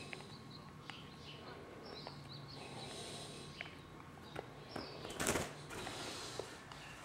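Western scrub-jay's wings flapping in one short, loud burst as it takes off, about five seconds in, after a few faint ticks.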